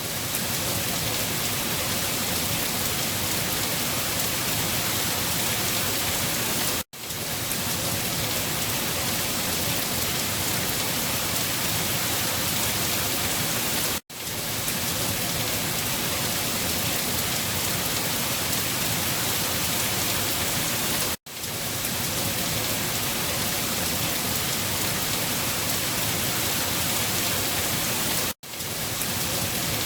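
Steady, heavy rain: an even, dense hiss. It cuts out for an instant four times, about every seven seconds, where a short rain recording loops.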